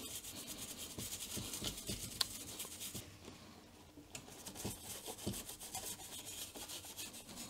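Toothbrush bristles scrubbing a soldered circuit board wet with alcohol to clean off leftover flux: quick rasping strokes, a short lull about three seconds in, then the scrubbing resumes.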